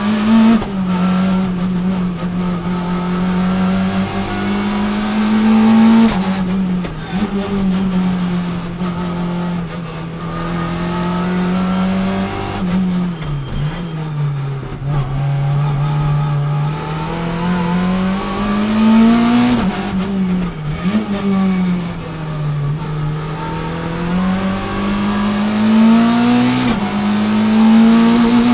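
Citroën C2 R2 Max rally car's naturally aspirated 1.6-litre four-cylinder engine heard from inside the cabin, driven hard: the note climbs under acceleration and drops sharply several times as the driver lifts for corners, with an upshift from second to third on the sequential gearbox.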